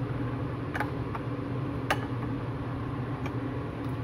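A metal spoon clinking lightly against a ceramic bowl a few times while stirring thick oat porridge made with milk, over a steady low hum.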